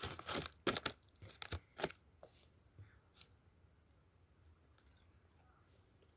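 Plastic jelly-snack wrapper crinkling and being torn open: a run of sharp crackles over the first two seconds, then only a few faint clicks.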